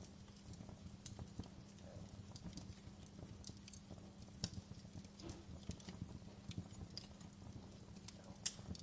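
Wood fire in a fireplace crackling: irregular sharp pops and snaps, the loudest near the end, over a low steady hum.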